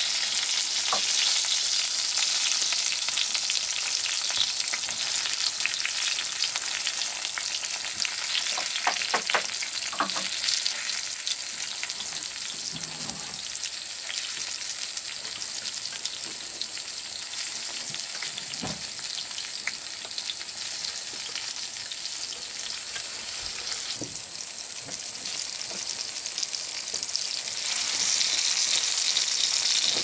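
Food frying in a pan, a steady sizzle that grows louder again near the end, with a few light knocks from stirring.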